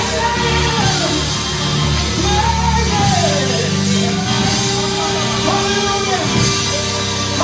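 Loud live gospel praise music in a church: a band holds a sustained chord over a steady bass while a singing voice swoops up and down over it.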